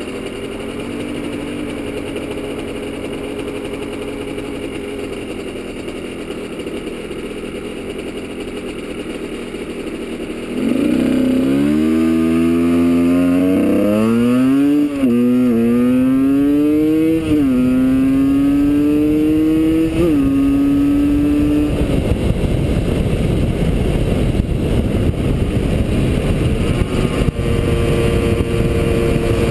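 Supermoto motorcycle engine idling, then about ten seconds in pulling away hard, its pitch rising through each gear with several upshifts. At speed, wind rush on the helmet microphone covers the engine, which settles to a steady cruise near the end.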